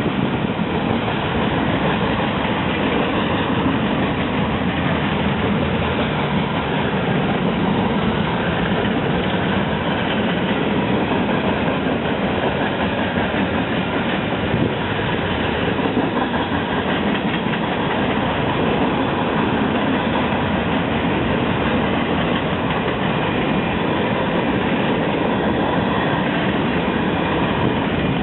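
Long train of railroad cars rolling past close by on the track: a steady, loud noise of wheels running on the rails.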